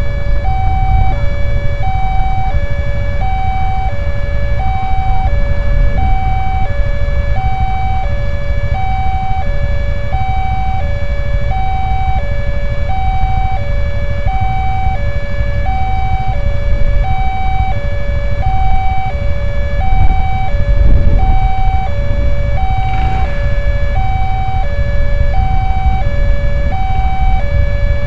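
Railway level-crossing warning alarm sounding from the speaker on the crossbuck post. It is an electronic two-tone signal that alternates high and low, about one high-low cycle a second, meaning the barriers are down and a train is coming. A low rumble runs underneath.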